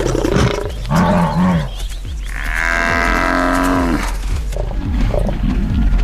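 Lions and a Cape buffalo bull calling in a standoff: short growling calls about a second in, then one long drawn-out call lasting about two seconds.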